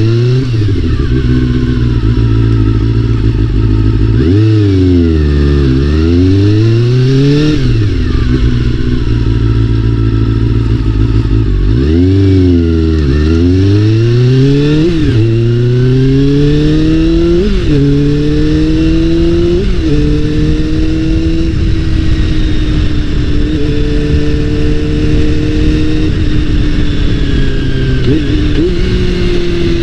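Honda CBR400RR's inline-four engine under way, its pitch climbing and then dropping sharply at each gear change as the bike accelerates through the gears. A steadier cruise follows, with one more shift near the end.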